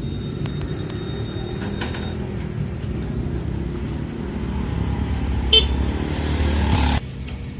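Engine of a street-light maintenance vehicle running steadily, growing louder over the last few seconds, with one sharp click about five and a half seconds in; the sound drops away abruptly about a second before the end.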